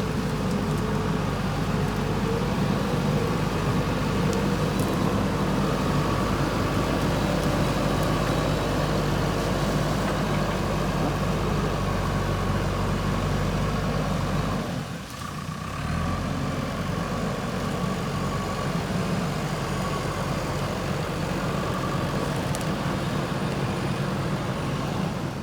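JCB backhoe loader's diesel engine running steadily under load, with a brief dip in the sound about fifteen seconds in.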